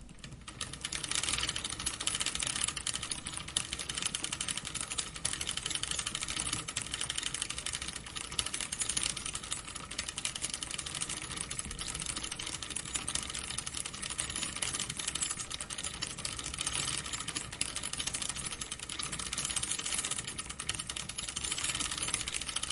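Bicycle chain and drivetrain running, a dense, rapid, even clicking and ticking that builds up over about the first second and then holds steady.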